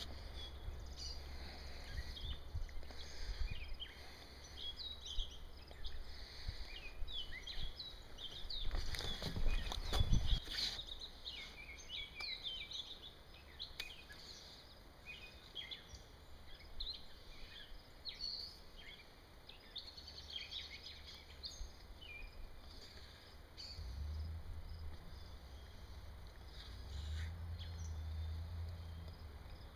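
Wild birds chirping and singing in many short, quick calls, busiest in the first two-thirds and thinning out later, over a low rumble that swells about ten seconds in and again near the end.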